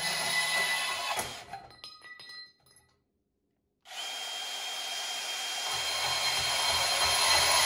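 Milwaukee M18 FUEL compact cordless bandsaw cutting 2x2-inch, 1/8-inch-wall square steel tubing. About a second in, the cut ends and the sound dies away with a little ringing. After a short break of complete silence, the saw starts cutting again with a steady high whine, growing louder.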